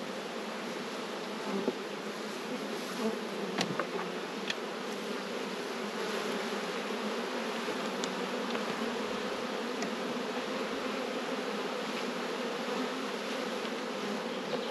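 Steady hum of a honey bee colony buzzing over its open hive box, with a few short sharp clicks as the frames are worked.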